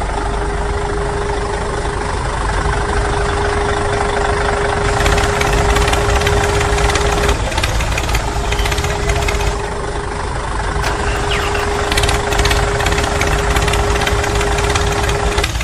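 An engine running steadily with a low rumble, a steady humming tone over it that drops out briefly about halfway through and stops near the end.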